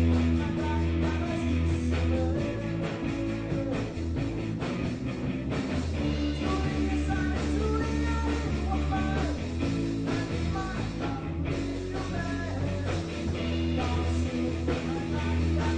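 Rock music with guitar over a steady bass and beat.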